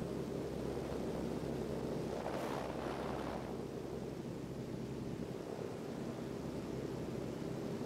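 Light aircraft's engine and propeller drone heard from inside the cabin, steady, with rushing wind noise; a brief swell of hiss about two and a half seconds in.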